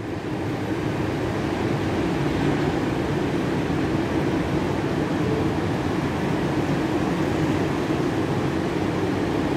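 Ocean surf breaking on the shore, heard as a steady, even rushing noise.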